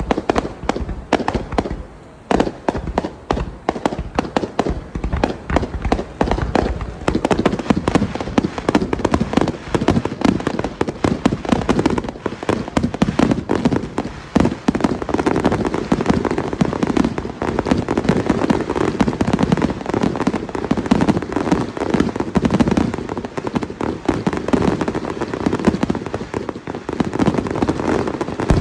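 Fireworks display: a rapid, continuous barrage of overlapping bursts and bangs, getting denser about a quarter of the way in.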